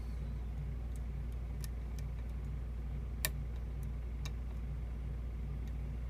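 Lock pick and tension tool working the pins of a challenge lock cylinder: a handful of faint, sharp clicks, one louder a little past three seconds in, over a steady low hum.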